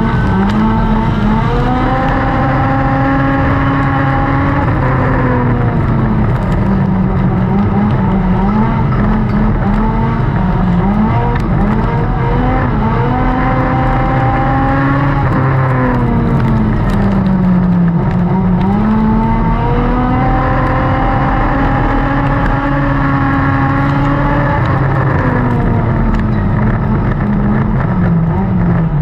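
Dirt-track race car's engine running hard at racing speed, heard from inside the cockpit. Its pitch falls off and climbs back up again and again as the car slows into each turn and accelerates down the straights.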